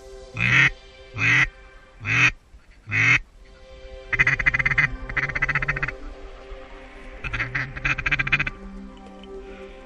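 Duck quacking: four loud quacks about three-quarters of a second apart, then two stretches of rapid, raspy chattering quacks. Faint background music runs underneath.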